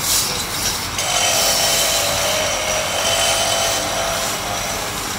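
Wood lathe running with a flat chisel held against the spinning wooden spindle. The edge shaves the wood with a steady scraping noise, loudest from about a second in until near the end.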